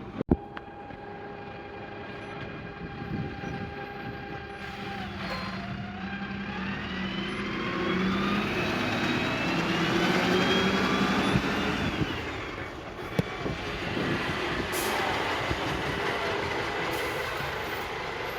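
Heavy diesel vehicle running close by, louder through the middle, with a whine that rises and then falls as it moves off.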